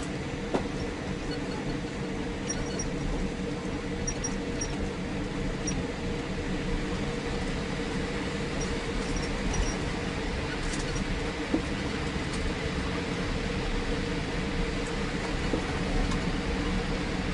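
Steady cabin noise of a Boeing 787 taxiing in after landing: a low rumble and a hum of engines at low power with air-conditioning hiss, and a few faint ticks and rattles in the cabin.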